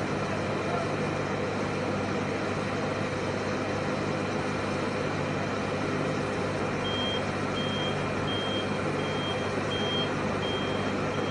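A forklift's reversing alarm beeping at one high pitch, about three beeps every two seconds, starting a little past halfway, over a steady engine drone.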